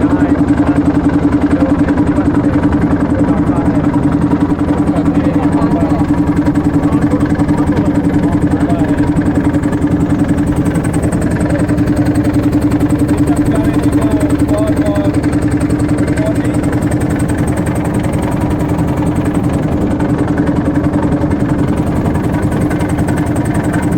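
Boat's engine running steadily at a constant speed, a loud, even drone.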